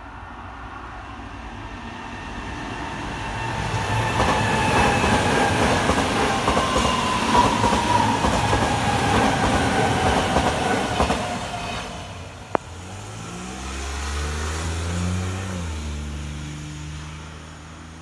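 Kintetsu Minami-Osaka Line electric train passing over a level crossing. The rumble and wheel noise build over the first few seconds and stay loud for about seven seconds, with a whine that falls slowly in pitch, then fade. One sharp click comes about twelve seconds in, followed by a low, wavering hum as the crossing barrier rises.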